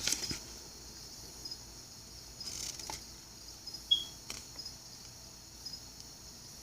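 Quiet room with a faint, steady high-pitched chirring in the background, a few light rustles of a paper instruction sheet being handled, and one short high beep about 4 seconds in.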